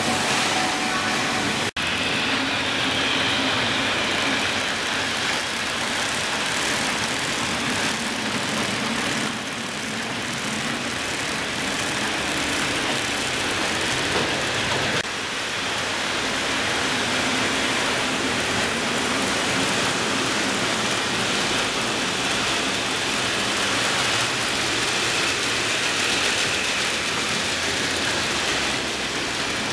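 N-gauge model trains running on layout track: a steady whirring hiss of small electric motors and wheels rolling on the rails. It cuts out briefly about two seconds in and dips slightly in level about halfway.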